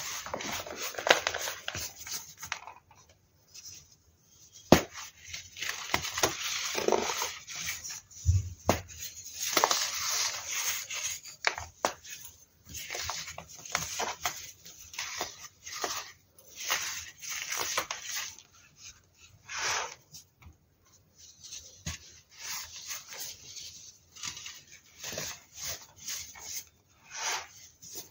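Dried baking soda cylinders being crushed and crumbled by hand: irregular dry crunching and gritty rubbing of the powder in bursts with short pauses, with one sharp click about five seconds in.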